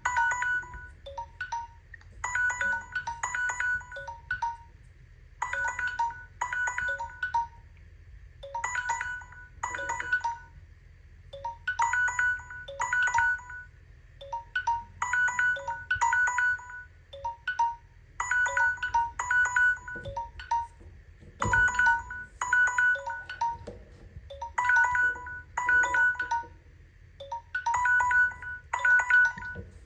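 Smartphone alarm tone: a short melody of brief high-pitched notes, repeated in phrases about every three seconds.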